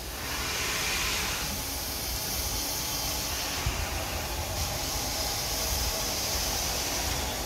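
SNCF 241 P steam locomotive letting off steam: a steady hiss that starts suddenly just after the beginning and gets sharper about halfway through.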